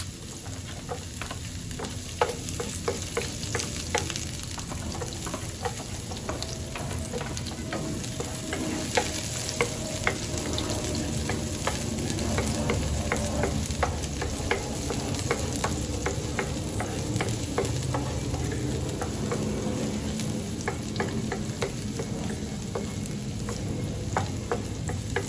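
Garlic sizzling in hot oil in a pan while being stirred, with the steady frying hiss broken by frequent sharp clicks of the spatula against the pan.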